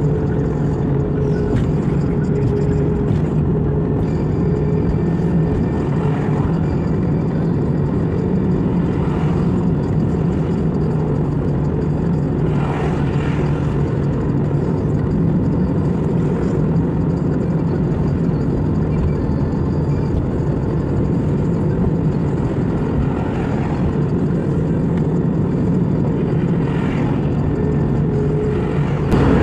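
Steady road and engine noise of a car on the move: a continuous low drone with a faint steady hum.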